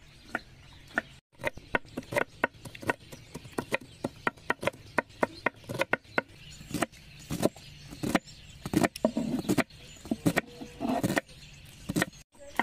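Kitchen knives chopping onion on a wooden cutting board: quick, uneven knocks of the blades against the board.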